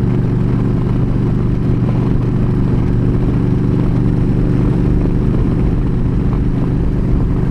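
Yamaha V Star 1300 V-twin engine running at a steady cruising speed, its pitch holding level, under constant wind and road noise from riding at highway speed.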